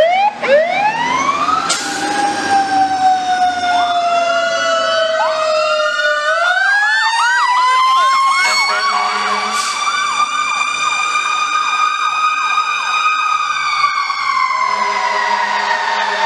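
Fire truck sirens on a call: one siren winds up to a long steady wail, and a rapidly repeating electronic yelp runs over it through the middle. Near the end the wail falls away and a lower, steady horn-like tone comes in.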